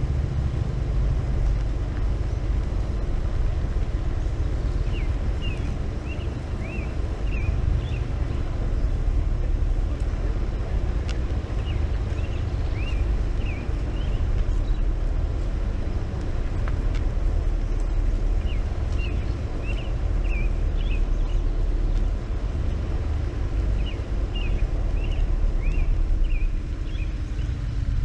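Low, steady rumble of the Jeep's engine running as it creeps along, mixed with wind on the microphone. A songbird repeats a short chirping phrase four times, about every six to seven seconds.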